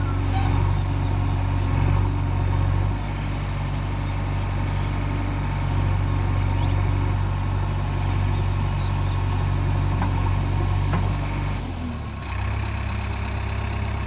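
JCB 3DX Eco backhoe loader's diesel engine running steadily as the backhoe arm digs, its note shifting slightly with the work. Near the end the engine note drops and settles at a lower, steady pitch.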